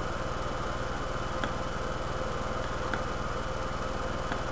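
Steady electrical hum and hiss with a few faint steady tones, broken by faint short clicks about every second and a half.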